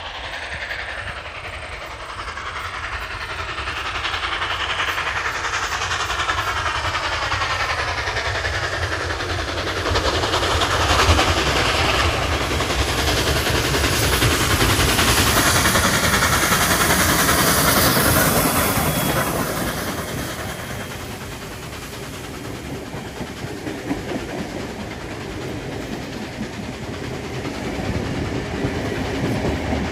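NSWGR 59 class 2-8-2 steam locomotive 5917 approaching and running past, growing louder to a peak around the middle. Its passenger carriages then roll by, wheels clacking over the rail joints.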